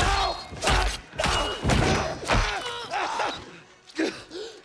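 Grunts, strained cries and groans of people struggling in a fight, with several low thuds of blows in the first two and a half seconds; it quietens near the end.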